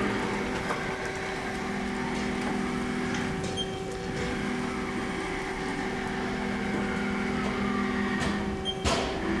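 2007 Haas SL-40 CNC lathe running with a steady, smooth hum made of several even tones, one of which drops out briefly twice. A single sharp click comes near the end.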